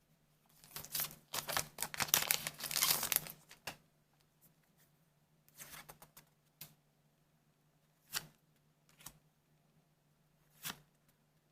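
A foil trading-card booster pack wrapper being torn open with crinkling for about three seconds, followed by a few short, soft sounds of cards being handled.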